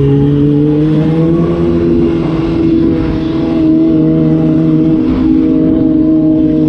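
Motorcycle engine running steadily at low road speed through slow traffic, with a slight rise in pitch in the first couple of seconds.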